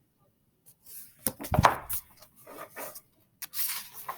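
Paper rustling and rubbing as a picture book's page is turned and handled, with a dull thump about a second and a half in.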